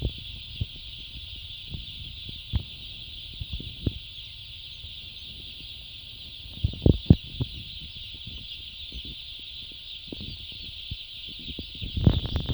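A large flock of chickens in a poultry shed, giving a steady high-pitched chorus of peeping and chirping, with scattered knocks and bumps close by, the loudest a few about seven seconds in.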